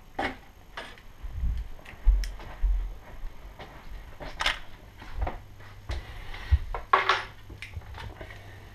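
Plastic clicks, knocks and handling bumps as the face of a Drayton Digistat Plus 3 digital thermostat is fitted onto its wall backplate, with a few low thumps early on and two sharper clicks about four and a half and seven seconds in.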